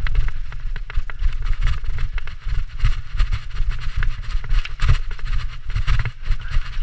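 Mountain bike riding fast down a dirt trail: tyres running over dirt and leaf litter, with many small clicks and rattles from the bike over bumps. Heavy, gusting wind rumble on the camera's microphone.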